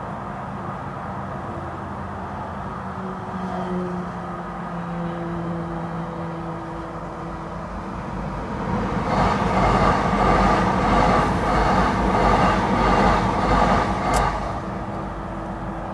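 c2c Class 357 Electrostar electric multiple unit passing over a level crossing. Its wheels and motors rise to a loud rush about nine seconds in and die away about five seconds later, with a sharp click near the end. Before it there is a steady background hum.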